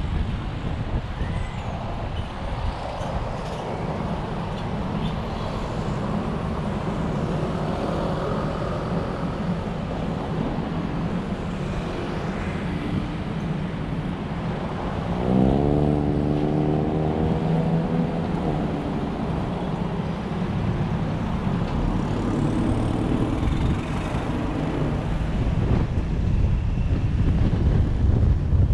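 Road vehicle driving noise: a steady low rumble of engine and tyres. About halfway through, an engine note rises sharply in pitch and then holds for a few seconds, the loudest part.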